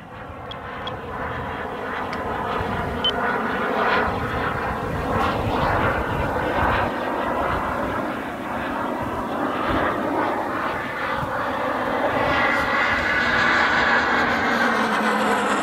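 RC model jet's turbine engine running at about half throttle as the jet flies overhead, growing louder toward the end, with its pitch dropping in the last couple of seconds.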